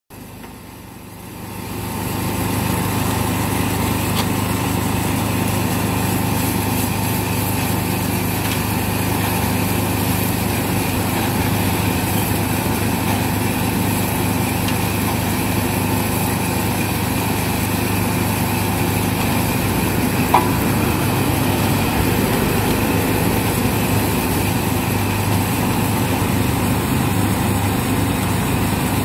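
Motor-driven rotating drum roaster turning seeds over a gas burner flame: a steady machine drone with a low hum and a constant hiss, swelling in over the first two seconds and then holding level.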